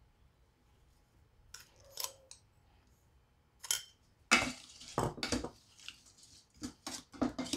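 A few light clinks of a metal spoon scooping sugar from a glass bowl. Then, from about four seconds in, a wooden spatula scrapes and knocks around a stainless steel electric pot in quick irregular strokes, stirring star gooseberry flesh with the sugar.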